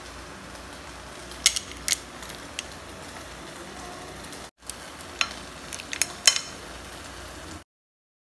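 Sharp clinks of clam shells against a ceramic serving plate, a handful of separate clicks over a steady low hiss; the sound cuts out suddenly shortly before the end.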